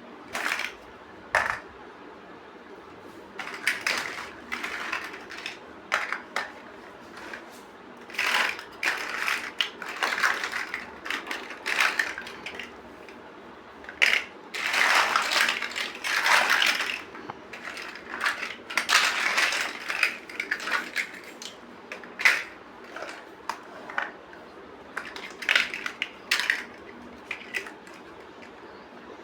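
Plastic building bricks being handled and pressed together: irregular clicks and short clattering spells, with longer rattling stretches around the middle.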